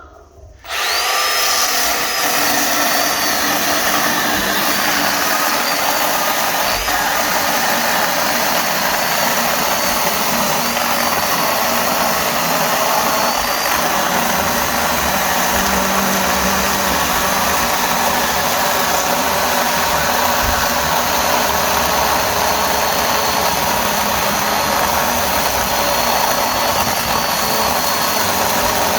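Milwaukee M12 battery chainsaw (2527-20) starting up under a second in and running steadily as its chain cuts through a log, with a wavering high whine from the electric motor and chain.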